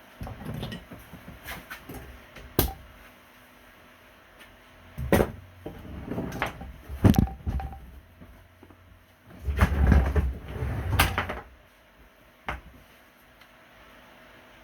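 Scattered knocks, clicks and thuds of hands handling objects, loudest in a cluster of heavier bumps about ten to eleven seconds in.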